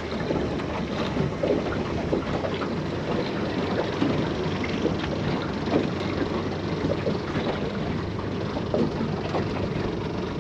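Water lapping and splashing against the hull of a small drifting boat, a steady wash of small splashes, with wind on the microphone.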